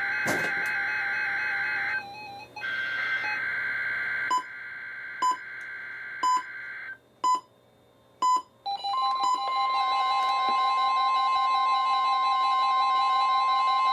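Weather radio alerting: steady layered electronic tones, then short beeps about once a second from about four seconds in. From about nine seconds in comes a loud steady high alarm tone, the NOAA Weather Radio warning alarm that opens a weekly test.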